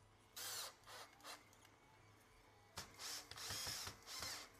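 Cordless drill/driver running in several short bursts, its motor whine rising and falling with each trigger pull, as it drives screws into the tank chassis. There is a pause of over a second between the first group of bursts and the second.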